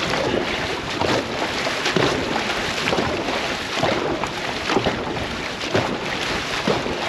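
Dragon boat crew paddling in unison: the paddles catch and pull through the water in a steady rhythm of about one stroke a second, over rushing water and wind on the microphone.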